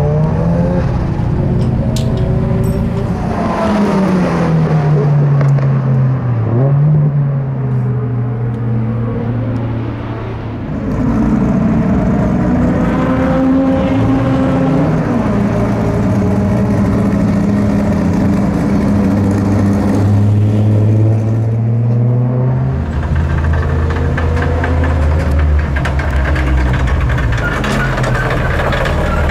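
Race car engine at high load, its pitch repeatedly climbing under acceleration and dropping under braking and shifts. The loudness dips briefly about ten seconds in.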